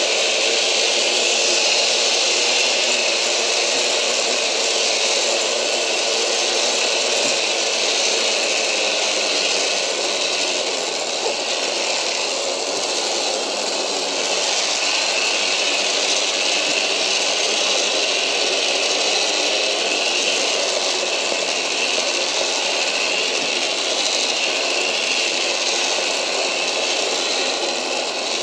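Zip-line trolley pulleys rolling fast along the steel cable: a steady, loud mechanical whir that holds without a break.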